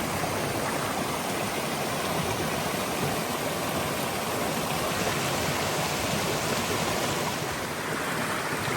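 Steady rushing of a mountain creek pouring over the top of a waterfall, close by.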